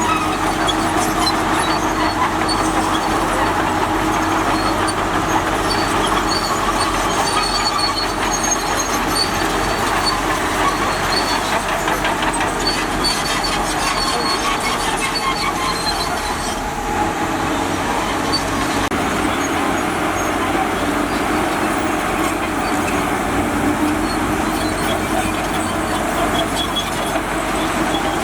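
Bulldozer's diesel engine running steadily under heavy machine noise, with many small metallic clicks throughout.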